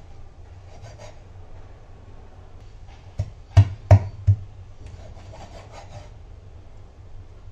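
A curved knife cutting fish flesh into chunks on a wooden chopping board: soft scraping of the blade, with four sharp knocks of the blade striking the board a little over three seconds in.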